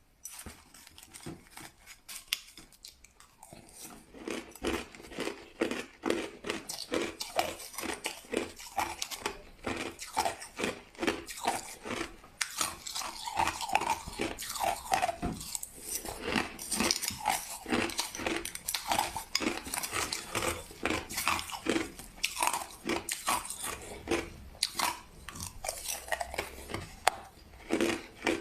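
Crushed ice being bitten and chewed close to the microphone: a dense run of irregular crisp crunches, quieter in the first few seconds.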